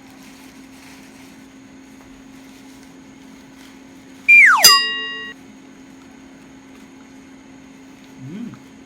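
A steady low hum, broken about four seconds in by a loud tone that slides quickly down in pitch and then rings on steadily for about a second.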